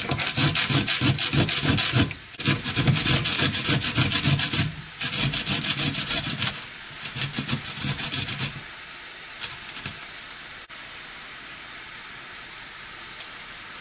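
Garlic cloves rubbed back and forth on a stainless steel box grater: quick rasping strokes, about four a second, with two short breaks. The grating stops about eight seconds in, leaving a faint steady hiss.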